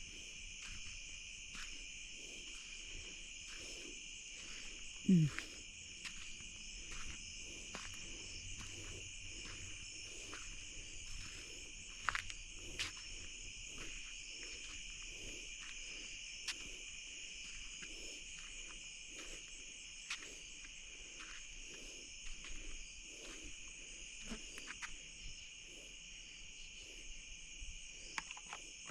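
Night chorus of crickets and other insects: steady, high-pitched trilling that goes on without a break. About five seconds in there is one brief, louder low sound that falls in pitch.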